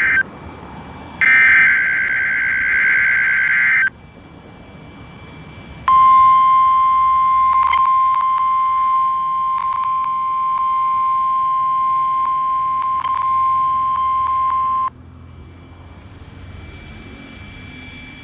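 NOAA Weather Radio weekly test signal heard through a weather radio receiver. A harsh warbling burst of SAME digital alert data lasts about two and a half seconds, and after a short pause the steady single-pitched warning alarm tone sounds for about nine seconds, with a few clicks of static. It stops suddenly, leaving radio hiss.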